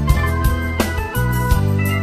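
Instrumental electronic keyboard music: organ-like sustained chords over held bass notes, with a steady drum beat.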